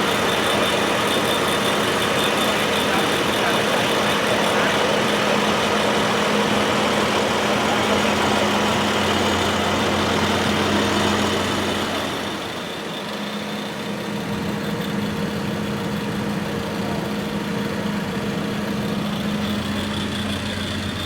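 A heavy engine running steadily at idle with a constant hum. The level drops slightly about twelve seconds in, then it carries on.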